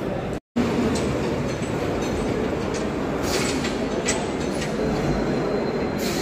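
Steady, fairly loud rumbling background din with no clear voice or machine standing out, cut off by a split-second drop-out to silence about half a second in.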